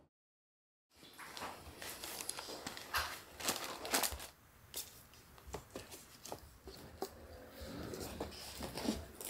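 Silence for about the first second, then irregular soft knocks, clicks and rustling as belongings are handled and unpacked from cardboard boxes.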